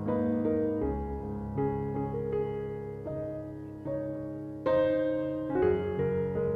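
Gentle background piano music: slow notes and chords struck about once a second and left to ring and fade.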